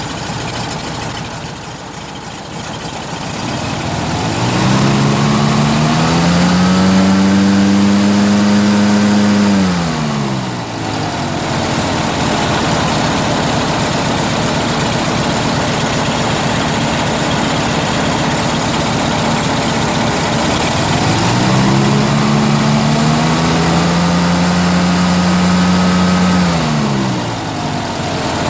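An engine running, revved up twice: each time the pitch rises, holds steady for a few seconds, then drops back to idle. The owner finds its sound strange.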